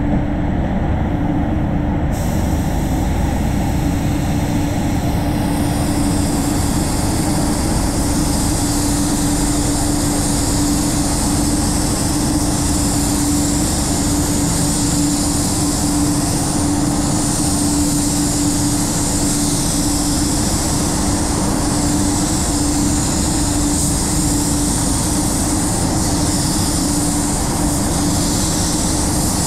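Compressed-air spray gun hissing as it sprays clear coat, coming in a couple of seconds in and staying strong from about six seconds, over the steady rumble and hum of the paint booth's air extraction.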